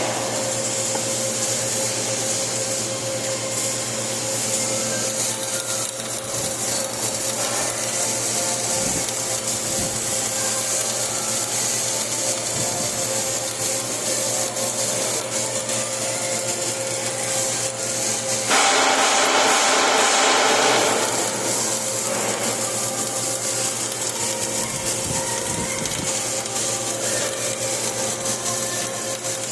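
Flux-cored arc welding: the arc crackles and sizzles steadily over a low electrical hum, growing louder and denser for a couple of seconds about two-thirds of the way through.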